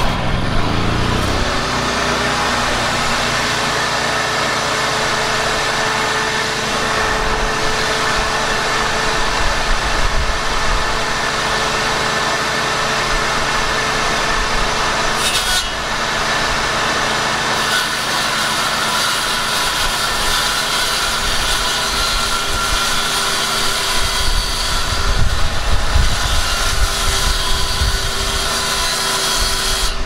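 Electric air compressor motor starting up, rising in pitch for about a second, then running steadily with a loud, even hum.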